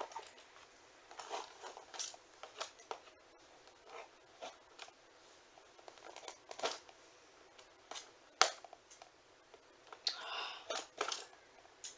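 Plastic toy packaging being worked open by hand: scattered crinkles, rustles and small clicks, with one sharp snap a little past halfway.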